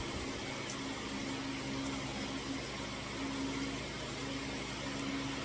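Steady background hum with an even hiss, as of a fan or machine running. No shots or clear handling clicks stand out.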